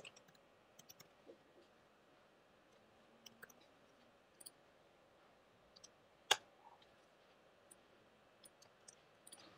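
Very quiet stretch with faint, scattered clicks of computer keys, and one sharper click about six seconds in.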